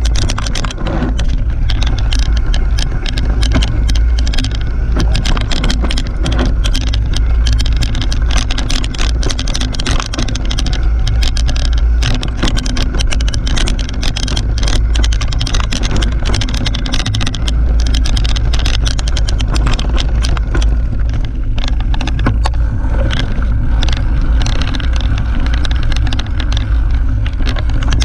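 Mountain bike riding fast down a dirt forest singletrack: a steady low rumble of tyres and air on the mounted camera, with frequent clicks and rattles as the bike chatters over the trail.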